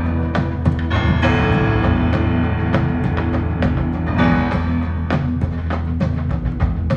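Recorded music with drums and sustained instrument tones, played back through a tube amplifier and heard in the room.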